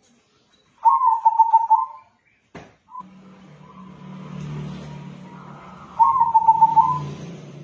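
Local crossbred zebra dove (perkutut) cooing: two phrases of rapid, pulsing notes, one about a second in and one near the end. A click falls between them, and a low hum runs from about three seconds in.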